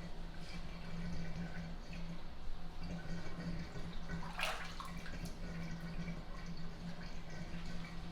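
Water in a bubble bath: faint small drips and crackles, with one louder splash about four and a half seconds in, over a steady low hum.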